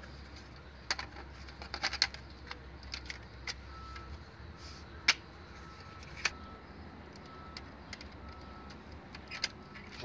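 Scattered plastic clicks and snaps as a washing machine's control board is handled and fitted into its plastic housing.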